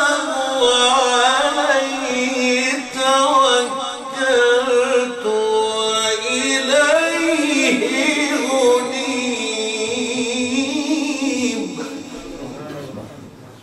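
A man's voice reciting the Quran in Arabic in the drawn-out melodic tajweed style, holding long wavering notes with ornamented turns, and tapering off near the end.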